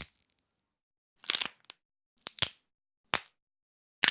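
A series of about five sharp cracking, crunching impacts, roughly one a second, with silence between. They are a sound effect of hard kicks landing and bone crunching.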